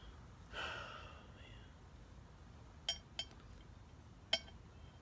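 Small metal parts clinking as valves are worked back into a 722.6 transmission valve body: a brief soft rustle near the start, then three sharp clinks, two close together about three seconds in and one a second later.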